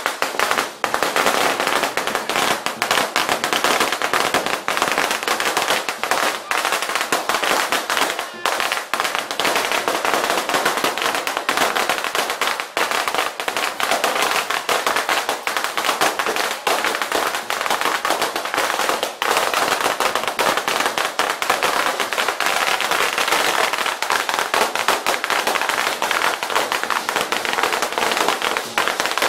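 A long string of firecrackers going off in rapid, unbroken crackling pops.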